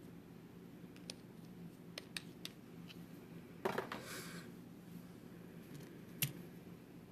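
Small objects being handled: a few faint clicks, then a short clatter a little past the middle and one sharp click near the end, over a low steady hum.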